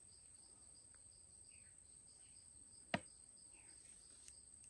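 Faint insect chorus: a steady high-pitched whine and a soft chirp pulsing about three times a second. A single sharp click sounds about three seconds in.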